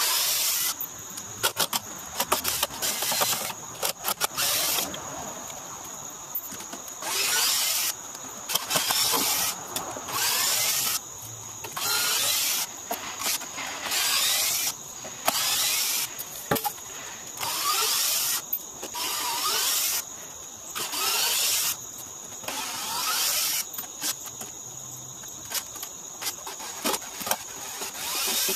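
Cordless drill/driver backing screws out of weathered wooden deck boards: the motor runs in short bursts of about a second, some fifteen of them, each as one screw turns out of the wood, with small clicks between.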